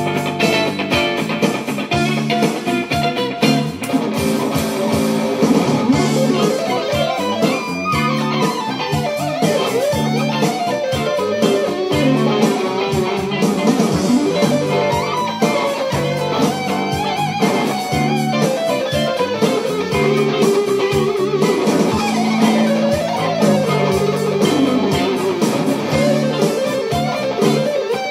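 Electric guitar played through a Hughes & Kettner amp: a lead part of fast picked runs and wavering, bent sustained notes over steady held low notes.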